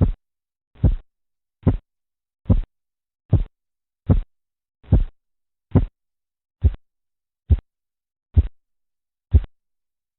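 Korotkoff sounds of a blood-pressure measurement heard through a stethoscope: a regular low thump with each heartbeat, about 70 a minute. The thumps grow shorter and then stop near the end, the point that marks the diastolic pressure.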